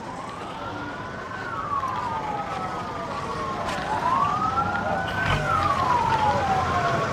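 Several vehicle sirens wailing at once, their pitches rising and falling out of step with one another, slowly growing louder.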